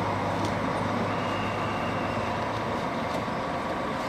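Steady vehicle noise: a continuous rumble with a low hum.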